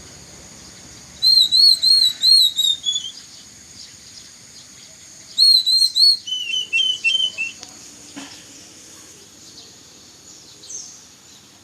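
Oriental magpie-robin (kacer) song: two loud bursts of clear whistled notes, each a quick run of arching up-and-down notes that steps lower at the end, with a few faint calls later over a steady high hiss.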